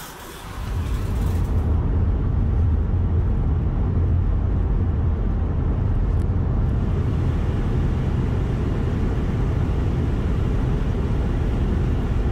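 Steady low rumble of a car driving along a road, tyre and engine noise heard from inside the cabin, coming up to full level within the first second.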